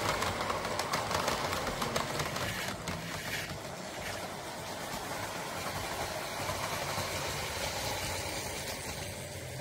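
Lionel O gauge freight train running on three-rail tubular track, its wheels clicking and rattling over the rails. The noise is loudest in the first few seconds as the cars pass close by, then drops to a quieter, steady running sound as the train moves away.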